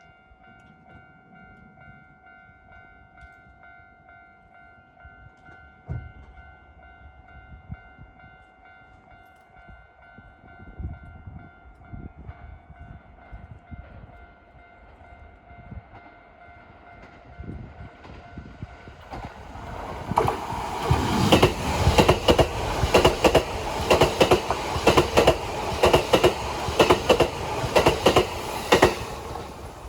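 Japanese level-crossing warning bell ringing in steady tones. Then, about two-thirds of the way in, a Kintetsu 80000 series Hinotori electric limited-express train passes through the crossing at speed, loud and close, its wheels clacking rhythmically over the rail joints until it has gone by near the end.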